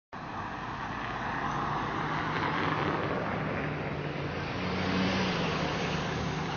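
Street traffic: a car's engine and road noise running steadily, growing a little louder about five seconds in.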